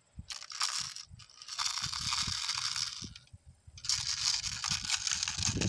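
Rustling and scraping handling noise close to the microphone, in two long stretches with a short gap between them, over a few low knocks.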